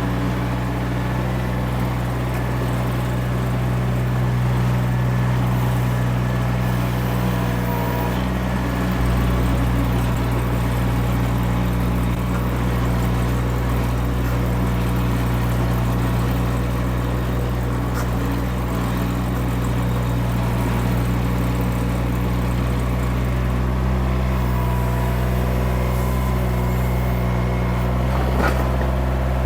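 Mini skid steer's engine running steadily, its tone shifting slightly about nine seconds in.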